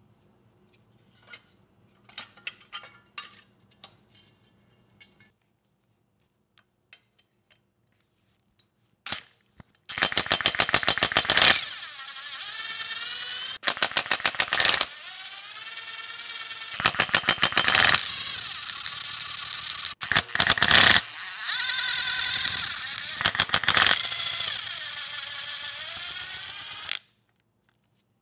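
Cordless impact driver zipping out the cylinder head bolts of a Briggs & Stratton generator engine: several loud bursts of rapid hammering as each bolt breaks loose, each followed by the motor whirring as the bolt spins out. It stops suddenly near the end, after a few light clicks of tools being handled near the start.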